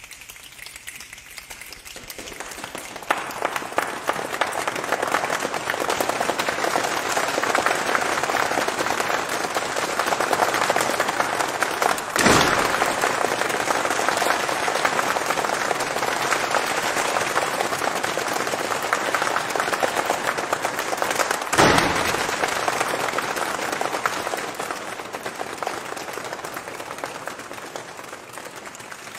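Audience applauding, swelling over the first few seconds and slowly dying away near the end. Two sharp thumps stand out, about twelve and twenty-one seconds in.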